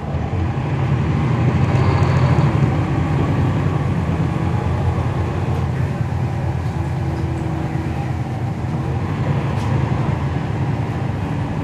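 Cummins ISL9 inline-six diesel of a 2011 NABI 40-SFW transit bus heard from inside the cabin, running under way with a steady low rumble. It gets louder about a second in, then holds even; the ZF automatic transmission is barely heard.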